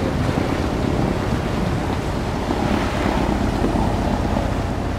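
Steady rush of wind on the microphone over the wash of sea water around a moving boat.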